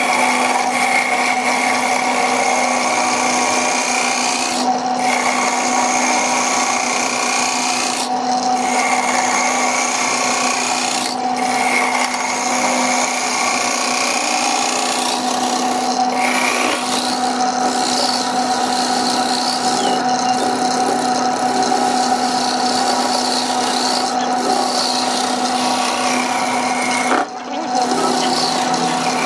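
Wood lathe running while a gouge cuts into a spinning glued-up blank of small wood pieces: a steady motor hum under a continuous scraping hiss of shavings peeling off. There are several brief gaps where the tool lifts away from the wood, the clearest one near the end.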